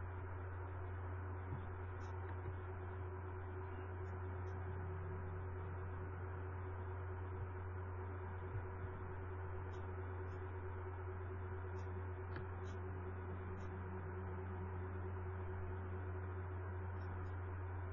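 Steady low electrical hum with a thin higher tone above it and an even background hiss, broken by a few faint ticks. It is the background noise of an open line on a video call.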